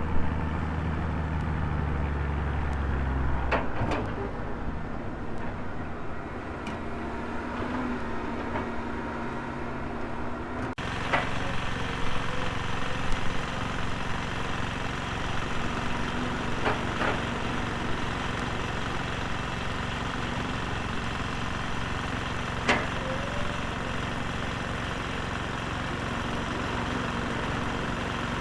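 Diesel engine of a Volvo excavator running steadily. A few sharp knocks or clanks break in, and the sound changes abruptly about eleven seconds in.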